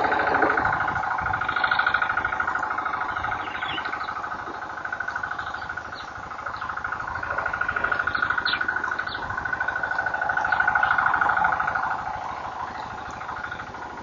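Insects buzzing in a steady, rapidly pulsing drone that swells and fades, with a few faint clicks.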